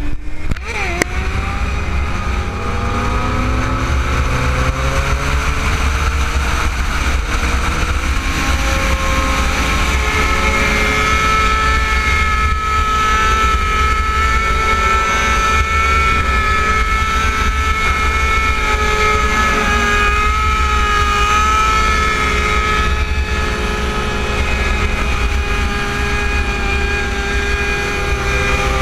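Sport motorcycle engine rising in pitch as it accelerates over the first few seconds, then running at a steady speed at freeway pace. A heavy rush of wind is on the microphone throughout.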